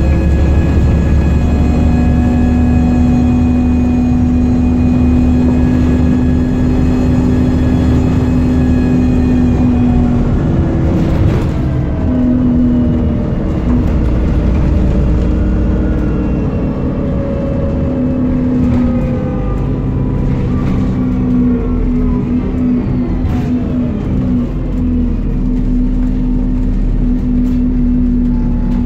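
Dennis Trident double-decker bus running, heard from inside on the upper deck. The engine and transmission drone and whine hold a steady pitch for about ten seconds, then shift and slide down in pitch as the bus changes speed. A few knocks and rattles come from the bus body partway through.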